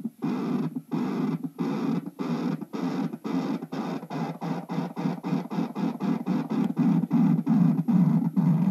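Harsh buzzing noise carried over a CB radio, pulsing on and off with short breaks that come faster and faster, reaching about four a second: a jamming sound keyed down on the channel.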